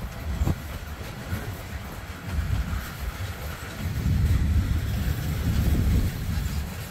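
Freight train's covered coil cars rolling past on the rails: a low rumble of steel wheels, with a sharp clack about half a second in, getting louder from about four seconds in.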